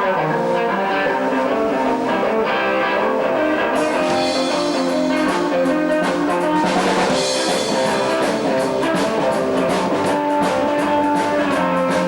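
Live rockabilly band playing an instrumental passage on electric guitar and bass, with the drum kit coming in about four seconds in.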